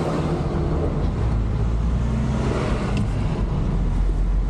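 Truck engine running steadily with road noise, heard from inside the cab while driving.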